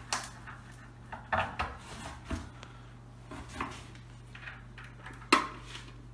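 Scattered clinks and knocks of metal bolts and a metal table leg being handled against a wooden cabinet corner, with one sharp metallic clank about five seconds in.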